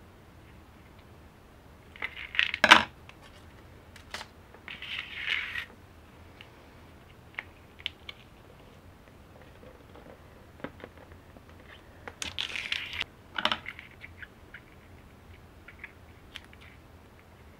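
Handling noises of a flexible LED light strip being cut with scissors and laid down: a few short bursts of crinkling with sharp clicks and snips, the loudest a click about two and a half seconds in, and another cluster near the end.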